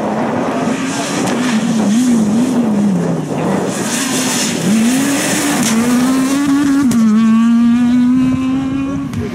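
Renault Clio rally car's engine at full throttle. Its note rises and falls several times in quick succession with gear changes and lifts, drops off around three seconds in, climbs again, and is held high and steady near the end. A burst of tyre noise comes on the loose surface about four seconds in.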